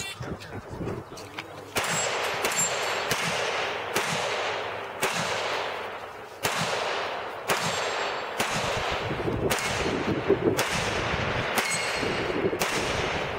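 Glock pistol fired in a string of about a dozen single shots, roughly one a second at an uneven pace, each shot trailing off in a long echo.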